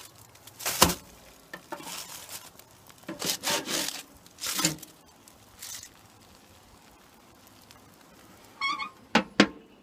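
Metal grill spatula scraping and clanking on a gas grill's grate while flipping a foil-wrapped packet of vegetables: a sharp clank about a second in, several short scrapes, then a brief metallic ring and two more clanks near the end.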